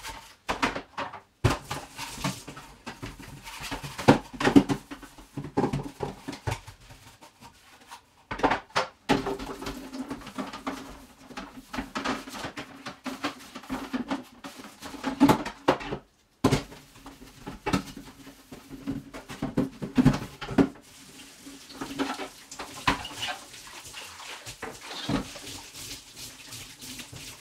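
Dishes and containers clattering and knocking as they are handled, in irregular bursts, with a few abrupt breaks.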